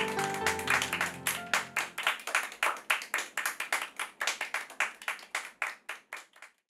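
A small audience clapping steadily, about five claps a second, growing quieter and dying away near the end. The last notes of a song's instrumental accompaniment fade out over the first two seconds.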